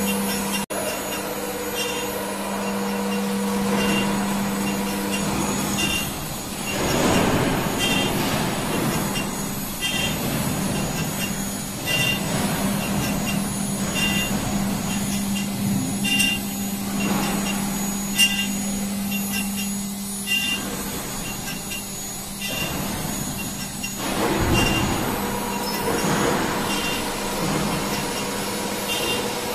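CNC engraving and milling machine running: a steady low hum, broken several times by louder rushing passages lasting a second or two.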